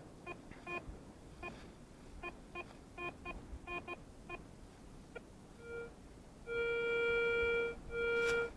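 Garrett ACE 350 Euro metal detector beeping as the coil is swept: a run of short, irregular beeps over the first four seconds, then a higher steady tone held for over a second from about six seconds in, broken once and resumed near the end, signalling a metal target under the coil.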